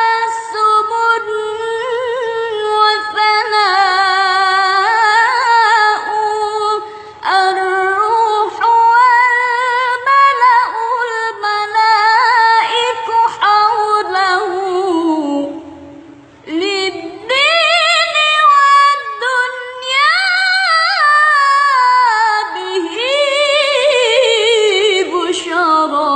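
A woman singing an Arabic sholawat devotional song, with strong vibrato and ornamented runs in a high voice. She pauses briefly about two-thirds of the way through, then goes on singing.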